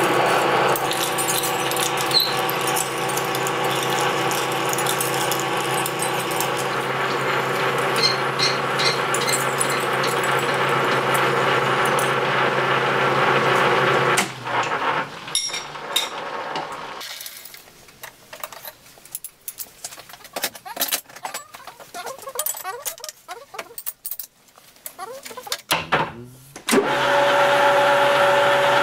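Metal lathe running under load, its gear drive giving a steady hum with several fixed tones, as a large twist drill bores out the centre of an aluminium part. About halfway the machine sound drops away, leaving scattered light clicks and clatter for several seconds, and the lathe starts running again near the end.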